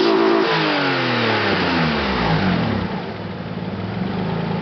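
Opel Astra G's 3.2 V6 (Z32SE) revved while parked, through a dual exhaust with an X-pipe and two Turboworks mufflers. The revs start high and fall away, with a short blip about two seconds in, then the engine settles into a steady idle.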